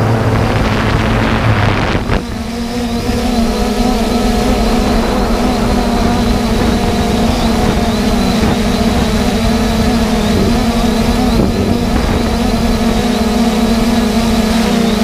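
3DR Solo quadcopter's brushless motors and propellers droning at a steady pitch, heard from the drone's own GoPro, with some wind noise on the microphone. About two seconds in there is a click and the drone sound settles at a higher steady pitch.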